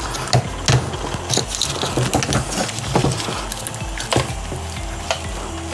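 Scattered clicks and light knocks of metal and plastic parts being handled as an old window regulator is taken apart, over a steady low hum.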